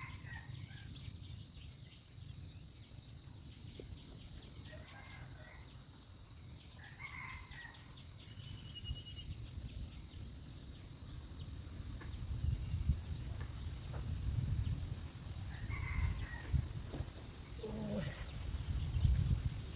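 Insects calling with one steady, unbroken high-pitched drone, over a low rumble that grows stronger in the second half.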